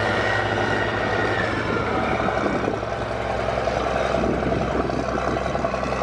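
Case IH Magnum 7250 tractor's six-cylinder diesel engine running steadily under load as it pulls a disc cultivator through the soil, with the noise of the implement working the ground.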